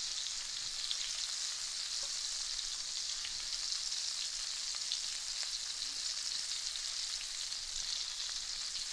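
Cornstarch-coated prawns frying in hot oil in a wok: a steady sizzle with fine crackling throughout.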